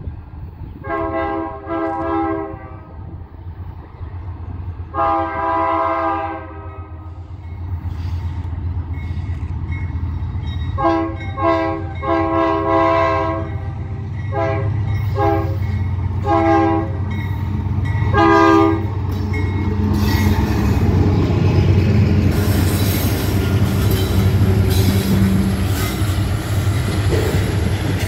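Ferromex freight train's diesel locomotives sound a multi-note air horn in a series of blasts, two long ones and then several shorter ones, over a steady engine rumble that grows as they approach. From about twenty seconds in the locomotives pass close, and their engines mix with steel wheels clattering and squealing on the rails.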